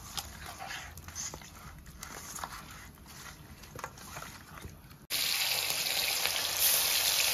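Faint scattered clicks and taps, then, about five seconds in, a sudden loud, steady sizzle of stingray pieces frying in hot oil in a kadai.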